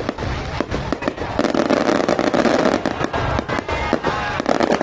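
Fireworks display: a rapid, dense string of bangs and crackles with no break, growing louder about a second and a half in.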